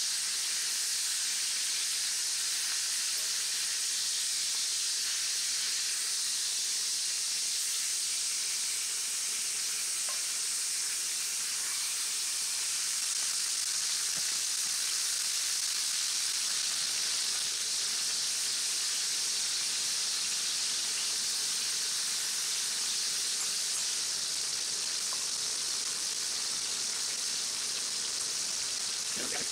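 Bone-in steaks sizzling steadily in a 12-inch Lodge cast-iron skillet, with butter and garlic frying in the pan fat beside them: the final high-heat sear of a reverse sear.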